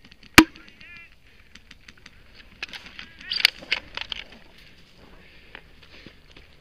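Dry weed stalks rustling and crackling as a player pushes through tall brush, loudest through the middle, after a single sharp snap about half a second in. A few short calls that dip in pitch sound faintly in the background.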